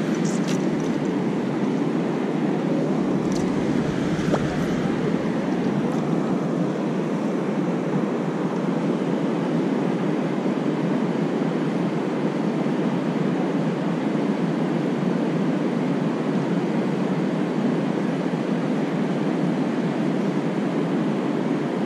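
A low, steady rush of flowing river water around a wading angler, even throughout, with a few faint clicks in the first seconds.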